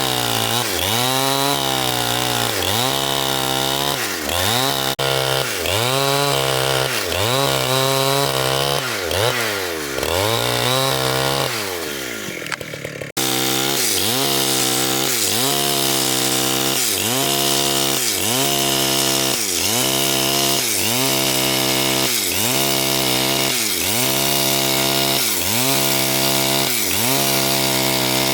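Chainsaw running and cutting wood, its engine pitch dipping and recovering in a steady rhythm about once a second. About twelve seconds in it fades briefly, then cuts back in abruptly.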